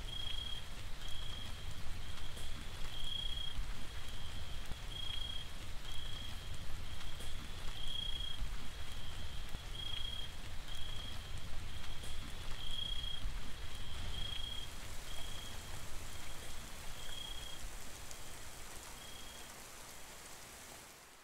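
Steady rain with a low rumble beneath it, over which a short, high chirp repeats about every two-thirds of a second. The sound fades down near the end.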